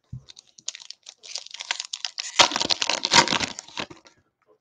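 Clear plastic wrapper of a basketball trading-card pack crinkling and tearing as it is ripped open. It is a dense crackle that is loudest from about two and a half to four seconds in.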